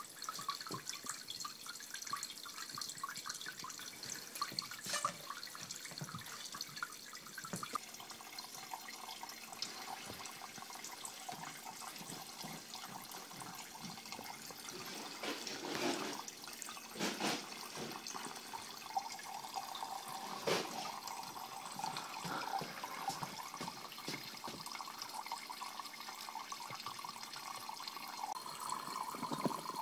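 Thin streams and droplets of water from a Kelvin water dropper falling into glass beakers, a steady trickling and splashing, with a few brief louder clicks. A faint steady tone joins about two-thirds of the way in.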